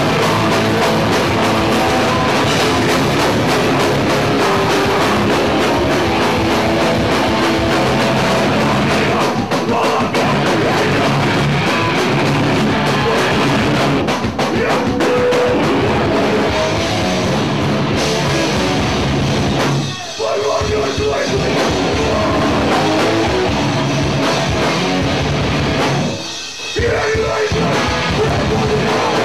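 Hardcore punk band playing live and loud: distorted electric guitar, drum kit and vocals. The band cuts out twice for a split second, about twenty and twenty-six seconds in.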